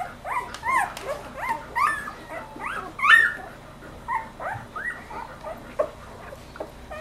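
Newborn golden retriever puppies squeaking and whimpering while they nurse: a quick string of short, high, rising-and-falling squeals, about two or three a second, thinning out over the last couple of seconds.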